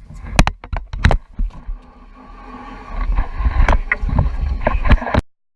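Noise aboard a fishing boat: a low rumble with a rushing haze that grows louder about three seconds in, broken by several sharp knocks. It cuts off abruptly near the end.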